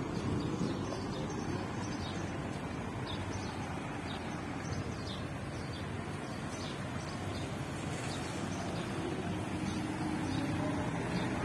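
Street ambience: a steady hum of road traffic, with a few faint bird chirps.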